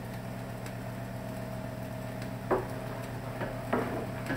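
Wooden spoon stirring thick tomato soup in an enamel stockpot, with a few light knocks about halfway through and near the end, over a steady low hum.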